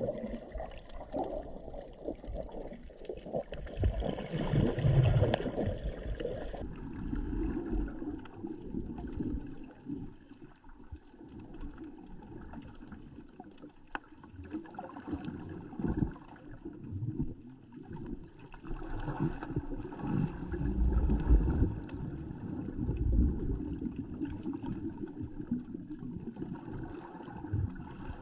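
Underwater noise picked up by a submerged action camera: a muffled, low wash of moving water with irregular thumps and gurgles against the housing.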